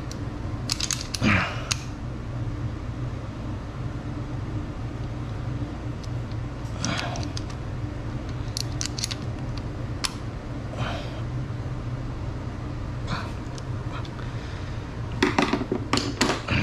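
Metal hand tools clicking and scraping: a ratcheting box wrench and a flathead screwdriver working a rocker-arm adjusting screw and lock nut on a valve adjustment. Scattered short clinks, with a quick run of them near the end, over a steady low hum.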